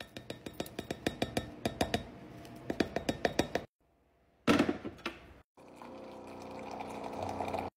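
Bone broth powder shaken from a canister into a glass measuring cup: a quick, even run of clicks and rattles. After a short clatter, a hot water dispenser pours a stream into the glass cup, a steady filling sound that slowly grows louder.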